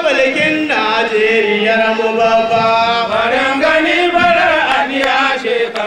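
A voice chanting in long held notes that waver and glide in pitch, phrase after phrase.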